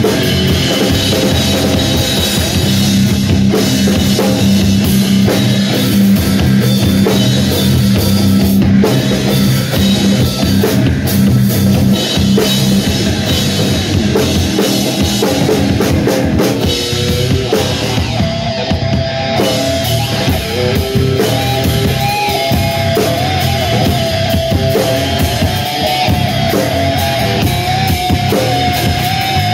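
Electric guitar and drum kit improvising loud heavy rock. Over the second half the guitar holds long notes that waver in pitch.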